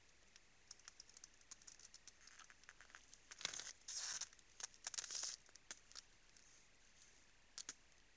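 Moose feeding at a salt lick and stepping on frozen snow: a run of sharp crunches and crackles, densest in a burst about three to five seconds in.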